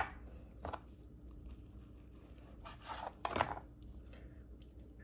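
Faint scrapes and taps of a kitchen knife and gloved hands on a plastic cutting board, once about a second in and again in a short cluster around three seconds in, over quiet room tone.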